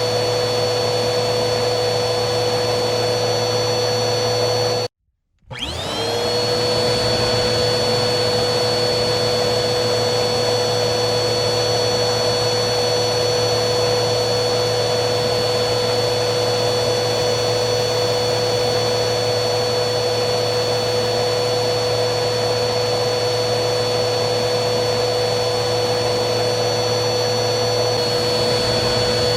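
Vacuum cleaner motor running steadily with a high whine. About five seconds in the sound cuts out abruptly for half a second, then the motor's whine rises back up to its steady pitch.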